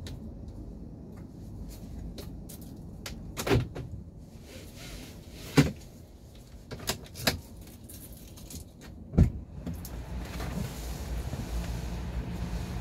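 A series of clicks and clunks from a parked car's cabin fittings and controls being handled, about nine in all; the sharpest knocks come about three and a half, five and a half and nine seconds in. A low rumble underlies them and grows louder near the end.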